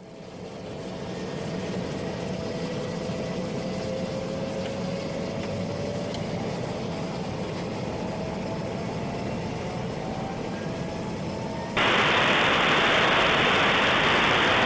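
PAC 750XL's PT6A turboprop engine starting and spooling up. Its sound builds over the first couple of seconds and then runs steadily, with a whine that slowly rises in pitch. About twelve seconds in, a loud radio hiss cuts in abruptly and runs for about three seconds.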